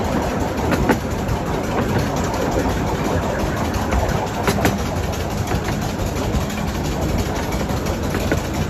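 Miniature railway train running along the track, heard from the carriage: a steady rumble of wheels on rails with a few sharp clicks.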